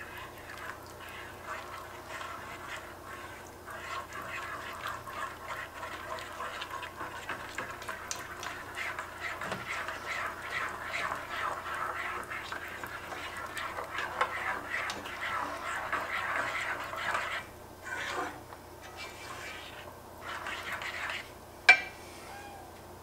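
Wire whisk beating a thick cheese sauce in an enameled cast iron pan: rapid wet squelching and light scraping of the tines against the pan. It breaks into short stop-start strokes after about 17 seconds, and a single sharp click comes near the end.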